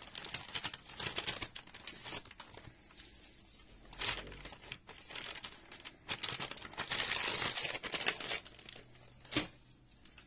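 Plastic baby-wipe pack crinkling and rustling as a wipe is pulled out and handled, in irregular bursts with the longest stretch about six to eight seconds in, and a sharp click near the end.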